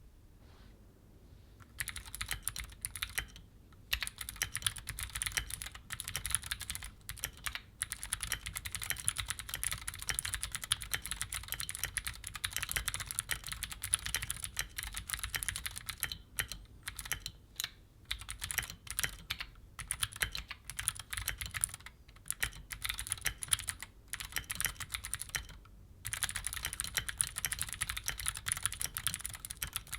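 Fast, continuous typing on a Keychron Q5 mechanical keyboard fitted with clicky Gateron G Pro Blue switches. Each keystroke gives a sharp click. The typing starts about two seconds in and runs on with a few brief pauses.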